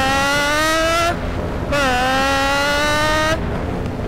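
A paramotor's two-stroke engine with its throttle being worked: the pitch climbs for about a second, dips away briefly, then comes back and holds, easing off again for a moment near the end.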